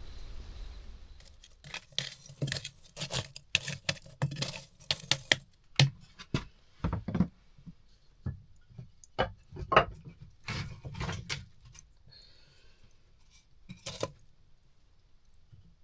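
Objects being handled close up: a busy run of clinks, clacks and knocks that thins out after about eleven seconds, with one last sharp knock near the end.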